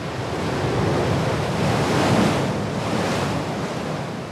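Rough open sea: waves surging and breaking under strong wind, swelling to its loudest a little past the middle.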